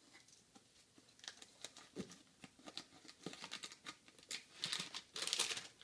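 Packaging crinkling and tearing as a drink can is unwrapped by hand. It starts about a second in as scattered crackles and grows into denser, louder rustling near the end.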